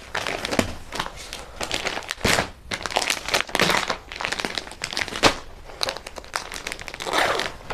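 Irregular crinkling and rustling of clear plastic garment packaging and glossy catalog pages being handled.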